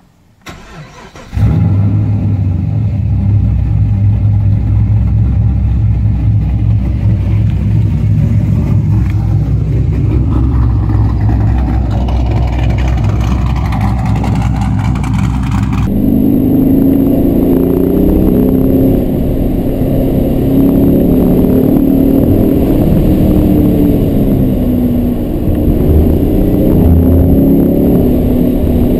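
Holden Monaro CV8's 5.7-litre LS1 V8 starting about a second in and then running steadily. After a sudden cut about halfway through, it is heard from inside the cabin accelerating hard through the gears, its pitch rising again and again.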